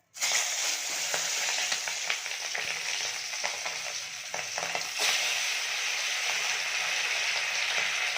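Pieces of turmeric-and-salt-rubbed bhola fish frying in very hot oil in a kadai: a steady, dense sizzle with many small crackles, starting suddenly. It swells briefly about five seconds in.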